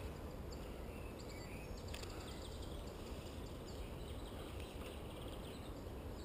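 Steady outdoor background noise with a low rumble, probably light wind on the microphone, and faint birds chirping at intervals.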